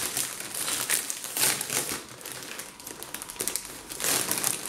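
Plastic crisp packet crinkling as it is pulled open and handled, in several crackly bursts.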